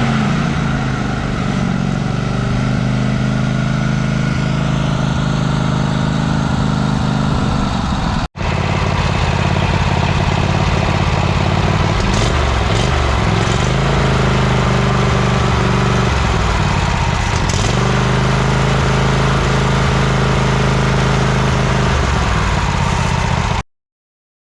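Cub Cadet Super LT 1550 lawn tractor engine running steadily; its pitch sags and recovers a few times. The sound drops out briefly about eight seconds in and stops abruptly near the end.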